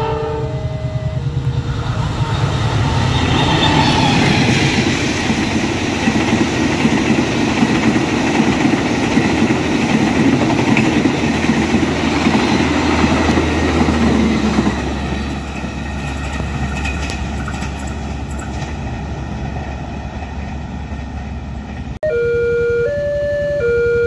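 A passenger train passes close by: a brief horn blast and a crossing's alternating beeps at the start, then the rumble and wheel clatter of the cars, building to a peak and fading about 15 s in. Near the end the sound cuts to a level-crossing alarm, switching steadily between two tones.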